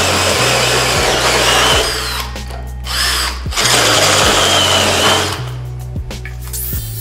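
Cordless drill driving a hole saw through 3 mm aluminium plate: a harsh cutting noise that eases off about two seconds in, comes back, and stops about five and a half seconds in as the hole cuts through. Background music runs underneath.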